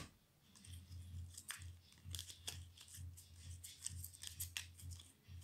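Glossy football trading cards being shuffled through by hand: faint, irregular card-on-card slides and light clicks.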